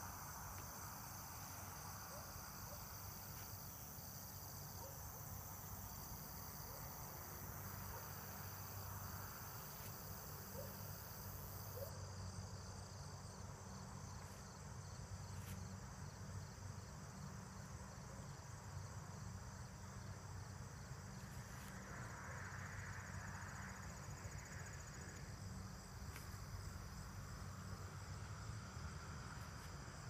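Evening chorus of crickets and other insects: a steady, fast, high trilling that runs on without a break, faint, over a low steady rumble.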